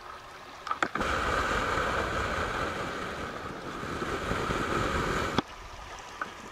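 Loud rushing noise on the camera's microphone, starting with a few clicks about a second in and cutting off suddenly after about four and a half seconds. It lies over the faint steady flow of a muddy river.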